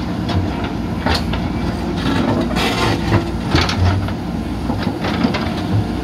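Diesel engines of two JCB 3DX backhoe loaders running steadily under load, with scattered clanks and scrapes as the backhoe buckets dig into broken concrete and rock in shallow water.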